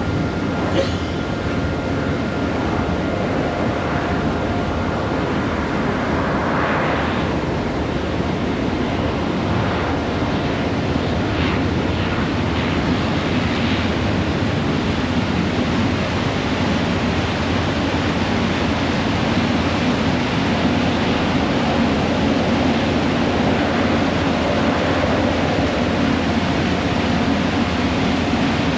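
Passenger ferry underway: a steady drone of its engines mixed with the rush of water churning in its wake.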